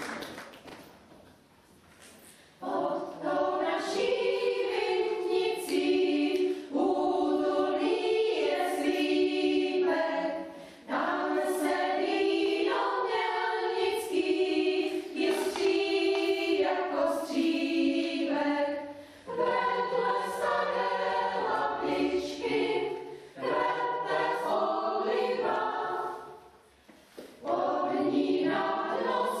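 Mixed chamber choir singing in parts, coming in about two and a half seconds in and breaking briefly between phrases near the end.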